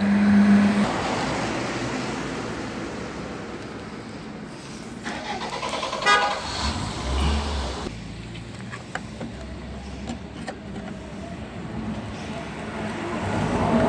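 Passing road traffic: a car horn sounds a steady low note that stops about a second in, while car noise swells and fades and another car approaches near the end. A brief rattle and a few sharp clicks come in between.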